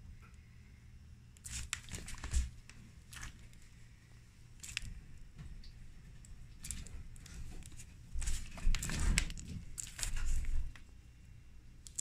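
Iguana eating banana: irregular wet smacks, clicks and squishes of its mouth and tongue, in scattered clusters with a denser run about two-thirds of the way in.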